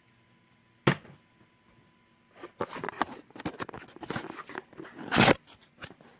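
A sharp click about a second in, then a quick run of small plastic clicks and rattles, the loudest near the end: a 3D-printed print-in-place fidget cube being worked by hand.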